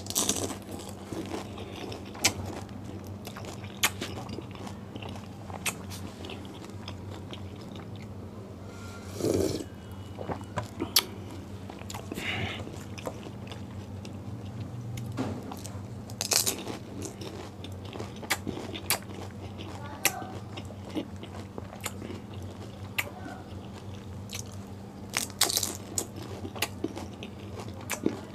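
Close-up eating of pani puri: crisp, hollow fried puri shells crunching between the teeth with wet chewing, in irregular sharp crunches. A steady low hum runs underneath.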